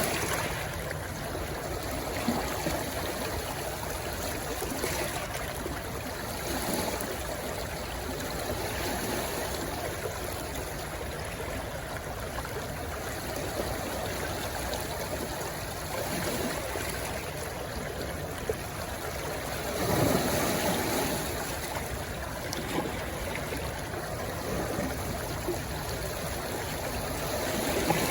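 Stream of water rushing and babbling steadily as it flows into the sea, with a few brief swells in the flow.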